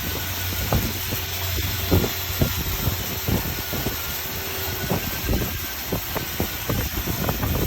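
Steady hiss of an emergency safety shower running at full flow (100 litres a minute at 2 bar), under heavy wind buffeting on the microphone that comes as irregular low thumps, with a faint steady hum behind.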